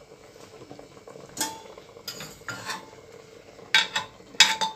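Metal ladle knocking and scraping against the inside of a pressure cooker while skimming scum off boiling mutton: a few sharp clinks with a brief ring, the loudest two near the end.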